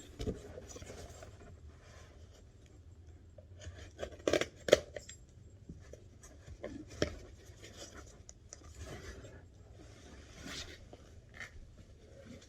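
Packaging being opened and handled: rustling and scraping, with a few sharp snips or clicks. The loudest come about four and a half seconds in and another around seven seconds.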